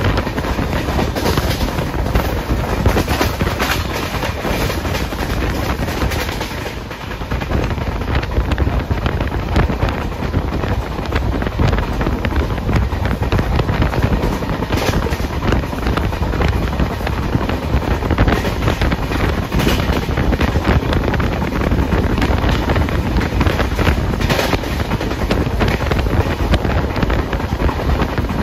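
Express passenger train running at high speed, heard from an open window: steady wheel-on-rail clatter and rumble of the coaches, with wind buffeting the microphone.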